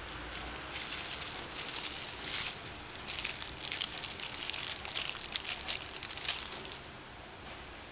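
Clear plastic protective film crackling as it is peeled off an iPhone 4 replacement back panel, in a run of irregular crackles that starts about a second in and stops shortly before the end.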